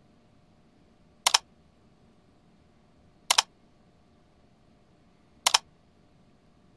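Three sharp double clicks about two seconds apart, each a quick pair of clicks: a pop-up click sound effect marking each rating panel as it appears. A faint steady hum lies underneath.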